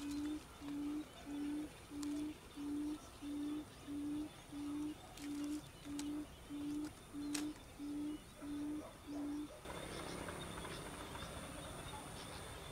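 Quail lure call from an electronic bird-call player: a low, steady hoot repeated about one and a half times a second, some fifteen times, stopping abruptly near ten seconds in. After it there is only faint background noise.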